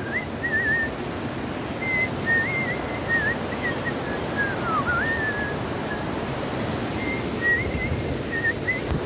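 A person whistling a wavering tune in short phrases, over a steady rushing noise.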